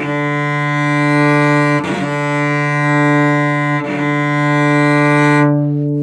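Cello's open D string bowed fortissimo with heavy arm weight: one sustained note in long whole-bow strokes, changing bow direction about every two seconds. Near the end the bow stops and the string rings on briefly.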